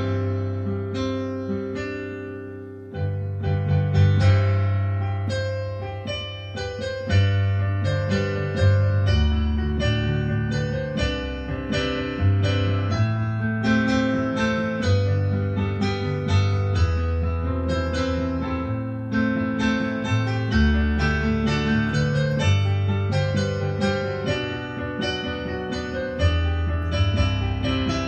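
Solo piano playing an instrumental interlude with no singing: held bass notes under chords that change every second or two.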